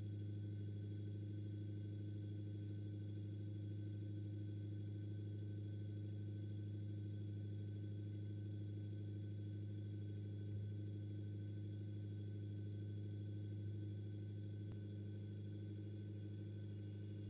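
Deutz-Allis 7085 tractor's diesel engine idling steadily, an even low hum with no change in speed.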